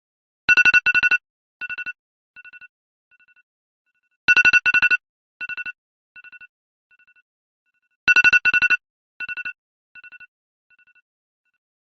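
iPhone alarm ringing: clusters of rapid high beeps that grow fainter step by step, the pattern starting over about every four seconds, three times.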